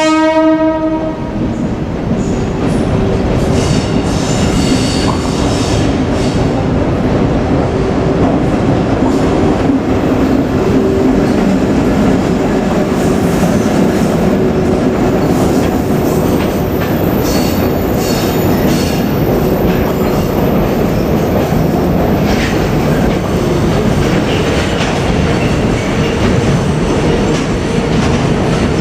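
A JR Freight EF81 electric locomotive hauling a freight train past at close range. The end of a horn blast cuts off about half a second in, followed by the steady rumble and clickety-clack of the locomotive and wagons rolling over the rails.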